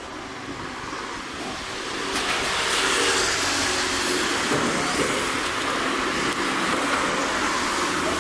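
Street traffic noise: a steady rush of passing vehicles that swells about two seconds in and then holds.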